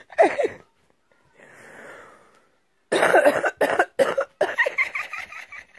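A person's voice in short, harsh bursts: one just after the start, then a rapid run of them from about halfway through almost to the end.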